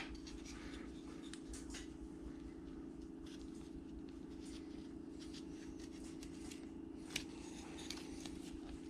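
Carving knife shaving small slivers from a wooden carving, a run of faint, irregular scraping cuts with an occasional light click, over a steady low hum.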